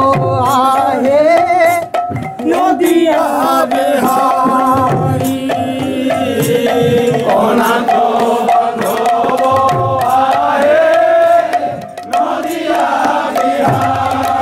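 Devotional kirtan: men's voices singing together over a khol, a barrel drum played by hand with quick, steady strokes.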